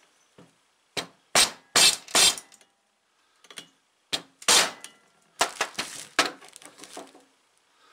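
Rubber mallet striking a deep-well socket to drive a crankshaft seal into the crankcase of a Stihl SH86C blower engine. There are four quick blows about a second in, then more scattered knocks, with a cluster of lighter ones near the end.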